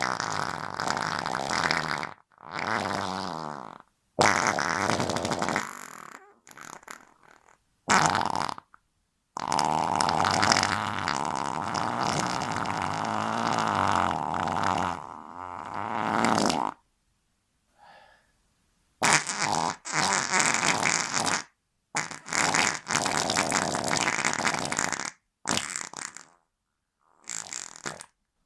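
A string of fart sounds, about ten in a row with short silences between them; one near the middle lasts about seven seconds.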